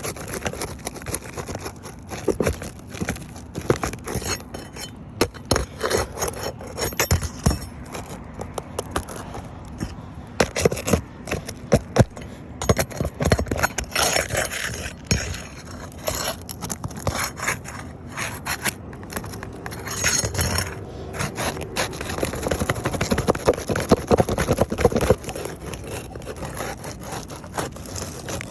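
Scraping and prying at old, brittle asphalt roof shingles while their roofing nails are worked loose: an irregular run of scrapes with sharp knocks and clicks.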